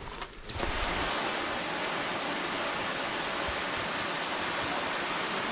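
Steady rush of a waterfall pouring into a rock pool, starting abruptly about half a second in.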